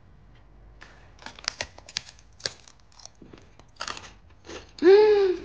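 Crunchy black sesame seed cracker being bitten and chewed: a run of sharp, crisp cracks for a few seconds. Near the end a short, loud hummed 'mmm' from the eater.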